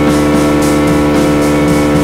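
KTM Duke 200 single-cylinder engine through an SC-Project SC1-R exhaust with a custom powerbomb header, running at a steady engine speed while riding, its drone holding one unchanging pitch.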